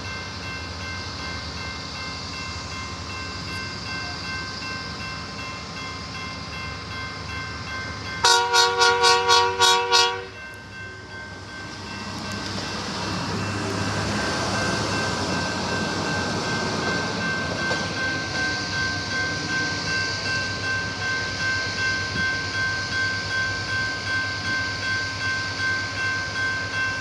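Trackmobile rail car mover's horn blown in a rapid string of about eight short blasts, under two seconds in all. The machine then passes, its engine and wheel noise rising and pulsing steadily.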